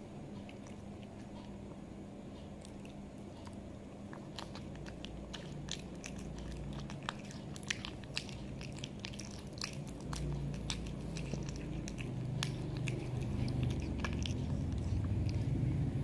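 Cat licking and chewing at raw chicken: a run of small wet clicks and smacks that starts about four seconds in. A low rumble builds up underneath near the end.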